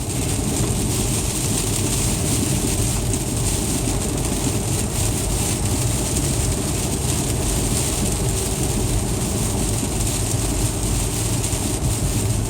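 Car cabin noise while driving on icy, snowy roads: steady tyre and road rumble with engine hum.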